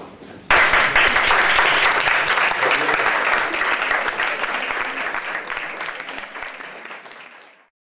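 Audience applause breaking out suddenly as a performance ends, many hands clapping together. It fades away near the end.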